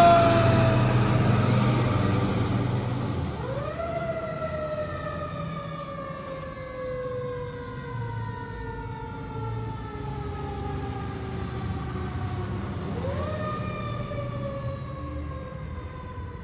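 2020 Pierce Arrow XT fire truck's siren winding down, then twice rising quickly and slowly falling away, growing fainter as the truck drives off. A low engine rumble lies under it at first.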